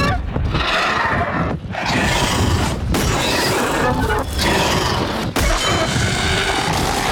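Fantasy battle soundtrack: a dramatic orchestral score mixed with heavy impact and crash effects as giant crossbow bolts strike a dragon, with a hard low hit near the end.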